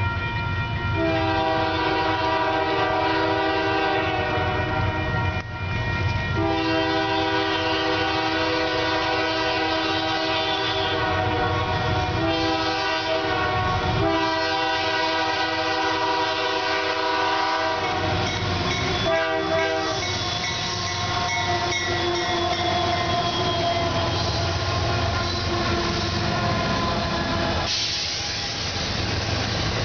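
Union Pacific diesel freight locomotive blowing its air horn in a series of blasts, mostly long, as it approaches a grade crossing. The horn stops about twenty seconds in, and the freight cars roll past with wheels clattering on the rails.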